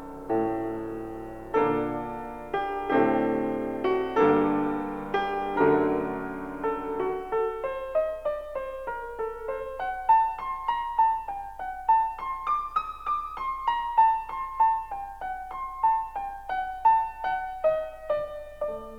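Solo piano music: slow full chords for the first several seconds, then a gentle melody of single notes, about two a second.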